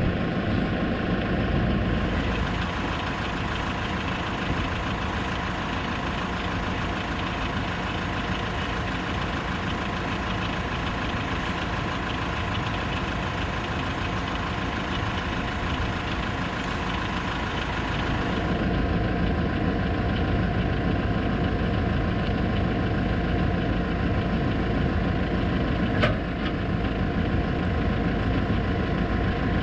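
New Holland tractor engine running steadily, its note changing about two seconds in and again two-thirds of the way through. A single short click sounds near the end.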